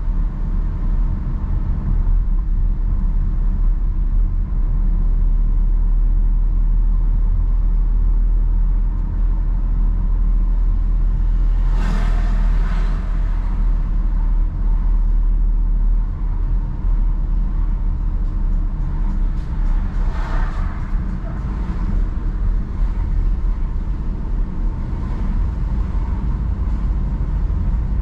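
A car driving slowly on a town road: a steady low rumble of engine and tyres on asphalt. Twice, about halfway through and again later, a short louder swell of hiss rises over it and fades.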